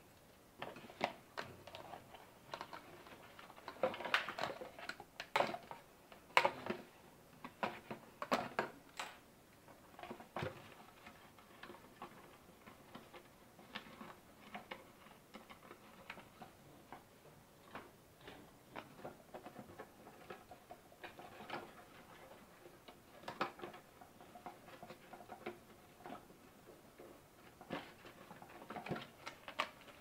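Hands handling a cardboard box and twisting wire through holes in it: irregular clicks, taps and scrapes of cardboard and wire, busiest between about four and nine seconds in.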